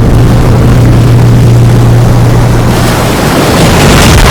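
Rough ocean surf rumbling under a steady low hum. About three seconds in, a wave breaks and a hiss of spray and foam swells up.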